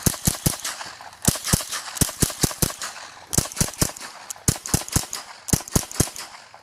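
Rapid rifle fire: strings of sharp shots, about four or five a second, with short pauses between strings.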